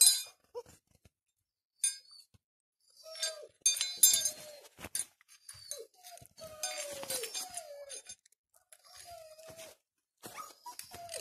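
Five-week-old German Shepherd puppies whining and yelping in bouts as they tussle in play, with scattered sharp clicks and clinks.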